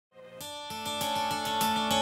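Background music fading in from silence just after the start: a plucked string instrument, probably guitar, playing quick, evenly spaced notes over held tones.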